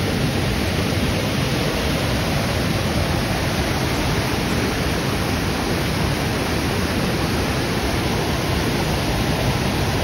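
Waterfall: a steady, loud rush of falling water with no break.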